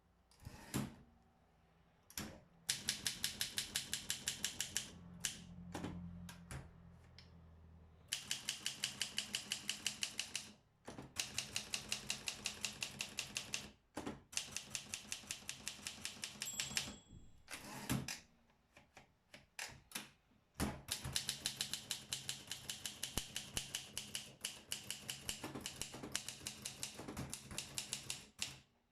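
Olympia SM7 manual typewriter being typed on: quick, even runs of key strikes, about eight to ten a second, broken by short pauses and a few heavier single clacks.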